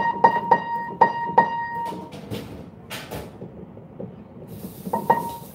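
A single high note of an upright piano struck over and over, a few times a second, while the tuner works the tuning hammer on its pin to bring the string to pitch. The strikes stop for a few seconds, with a brief rustle, and resume twice near the end.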